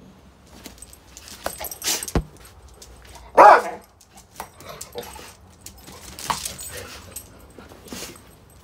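A dog gives one loud, sharp bark about three and a half seconds in, amid scuffling and light knocks from dogs scrambling after a balloon.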